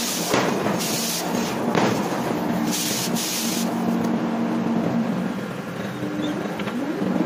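Heavy forging machinery working a red-hot steel forging: a steady machine hum with bursts of hissing, the longest about three seconds in, and a rising whine near the end.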